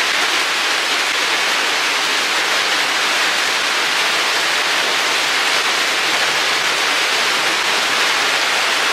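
Rain falling on the roof: a steady, dense hiss that does not change.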